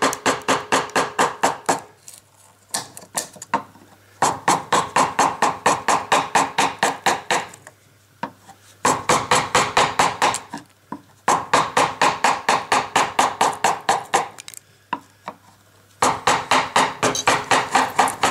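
Wooden mallet tapping the handle end of a carving gouge as it cuts into alder. The strikes come in quick runs of about five a second, broken by short pauses between runs.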